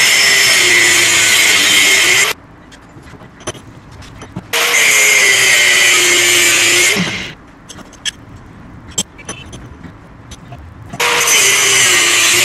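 Angle grinder with a cut-off disc cutting steel plate: three spells of loud grinding, with the motor's hum sagging and recovering as the disc bites. In the quieter gaps, about two seconds in and about seven seconds in, only scattered clicks and taps are heard.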